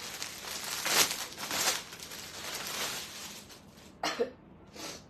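Plastic garment packaging crinkling and rustling as it is handled and opened, then two short sharp sounds close together near the end.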